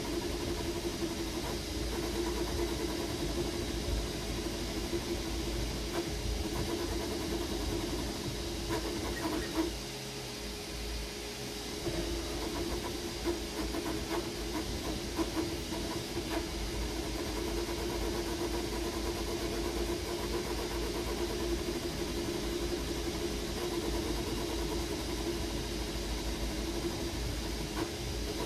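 Creality Ender 3 V3 KE 3D printer running a print: a steady mechanical hum with an even hiss and a few light clicks, briefly quieter about ten seconds in.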